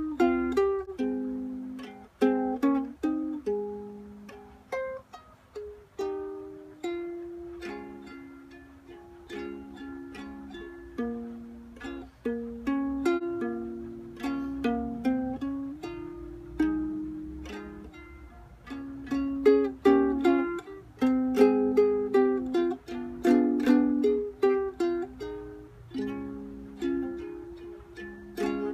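Solo ukulele playing an instrumental ad-lib break of picked notes and chords, softer in the middle and louder and busier in the last third.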